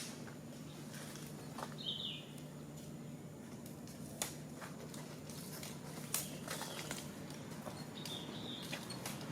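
Two short, high squeaky animal calls, one about two seconds in and another near the end, among scattered clicks and rustles over a low steady hum.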